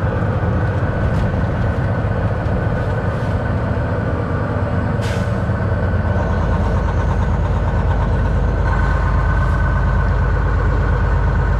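Semi truck's diesel engine and road noise heard from inside the cab while driving, a steady rumble that grows heavier about six seconds in. A single sharp click about five seconds in.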